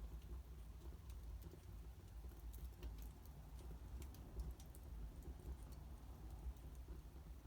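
Wood fire burning in a fireplace, crackling with faint, irregular small pops over a low rumble.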